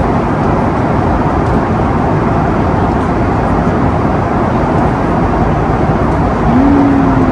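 Steady roar of an airliner cabin in cruise flight: jet engine and airflow noise, even and unbroken, heaviest in the low end.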